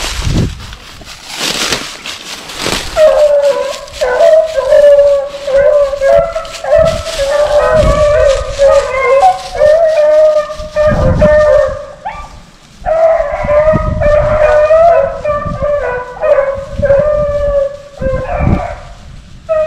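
A pack of beagles baying in chorus as they run a rabbit's trail, the dogs in full cry. The baying starts about three seconds in and carries on with short breaks, over rustling and low rumbles.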